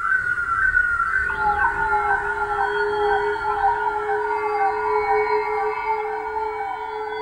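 Horror-film sound design: wailing, siren-like tones that slide down in pitch over and over, about three a second, with a second, lower series of wails joining about a second in alongside a steady held tone.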